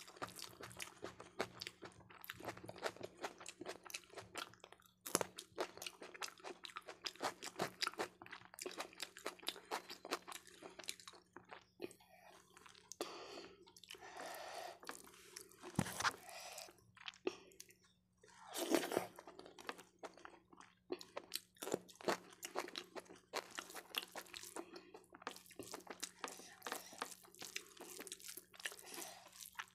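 Close-miked chewing and biting of dal, rice and fried okra eaten by hand, with wet food mixed by the fingers on the plate. It is a dense run of quick, crunchy mouth clicks over a faint steady hum.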